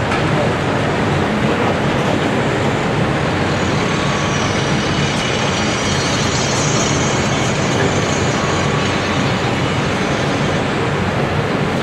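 Cat 385BL excavator's diesel engine running steadily under load as the machine digs and loads dirt, with a higher whine rising over it from about four to ten seconds in.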